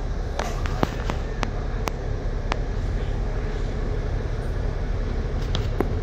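Steady low engine and road rumble inside a moving double-decker bus, with sharp rattling clicks scattered over it: several in the first two and a half seconds and two more near the end.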